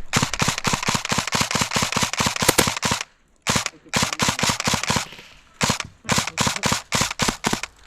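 Airsoft guns firing rapid strings of shots, about seven a second, with short breaks about three seconds in and again around five seconds in.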